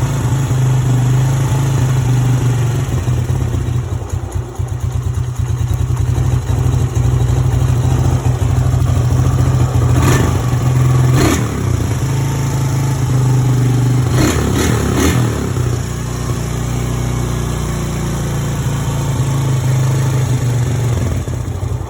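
Small E-ton Yukon 110 ATV engine running steadily at a high, somewhat rough idle after carburetor cleaning, with a few brief sharp knocks between about ten and fifteen seconds in.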